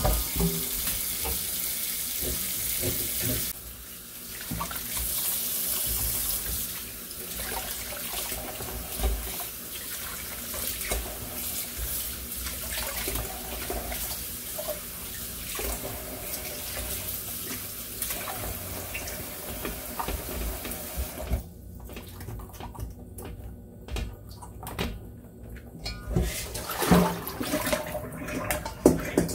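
Tap water running into a sink, with small knocks and clicks of things being handled. The water stops about three quarters of the way through, leaving only a few light clicks and knocks.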